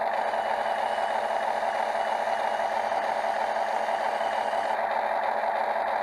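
Diesel engine of heavy earthmoving machinery (excavator and dump truck) running steadily at an even level.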